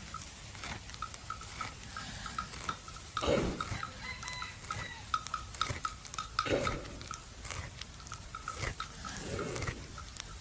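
A resting buffalo chewing its cud, with irregular moist clicks from its jaws and three low breathy sounds from the animal about three seconds apart. A steady, rhythmic high peeping, about three pips a second, runs underneath.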